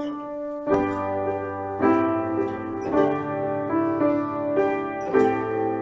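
Upright piano playing the introduction to a hymn tune, full chords with a bass line struck at a steady pace of about one a second.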